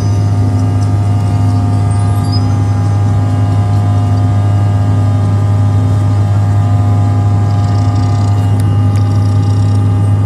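Cabin noise of a Bombardier CRJ-900 airliner in flight, heard from inside the cabin: the two rear-mounted turbofan engines give a loud, steady low hum with a few steady whining tones over the rush of air.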